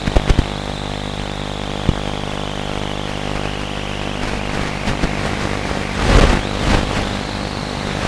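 Radio-controlled model plane's motor and propeller running steadily in flight, a high whine sinking slowly in pitch. Two louder noisy rushes come about six seconds in and again near the end.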